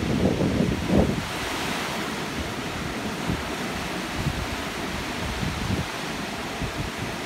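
Ocean surf breaking and washing up the shore in a steady rush, swelling about a second and a half in. Wind buffets the microphone, most strongly in the first second.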